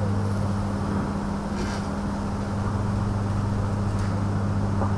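Steady low electrical hum over a constant noise floor, with a brief soft rustle about one and a half seconds in.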